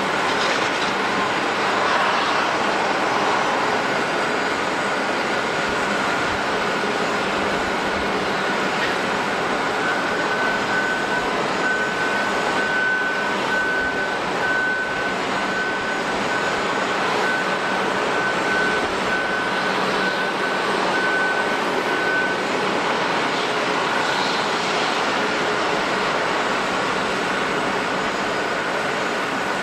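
Jet engines of a Japan Airlines Airbus A350 (Rolls-Royce Trent XWB) running at idle on the ground: a steady rush with a high whine that grows stronger for about ten seconds in the middle.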